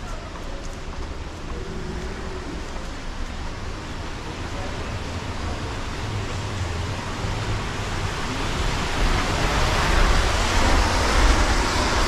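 City street traffic: a steady hiss of tyres and engines with a deep rumble that swells over the last few seconds as a vehicle comes close.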